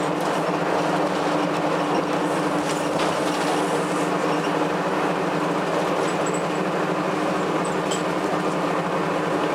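Cummins ISC inline-six diesel of a Blue Bird CS transit bus heard from inside the cabin, running steadily as the bus travels at an even speed, under road noise. A few faint clicks and rattles sound over it.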